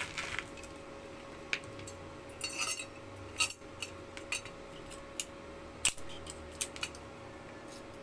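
Metal tools and parts clinking and tapping as they are handled, a dozen or so separate sharp clinks at irregular intervals over a faint steady hum.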